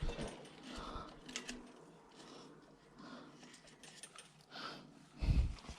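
Light clicks and handling noises from small bicycle rear-hub parts being worked by hand, with a heavier low thump about five seconds in.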